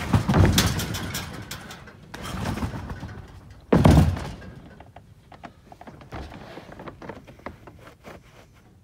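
A trampoline bed thumping as a person bounces and flips. The loudest thump comes just before four seconds in, as sneakered feet land on a padded deck, followed by faint scuffs and clicks.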